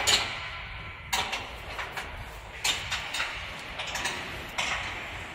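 Scattered metallic clicks and knocks, about one a second, of a wrench tightening bolts on the machine frame.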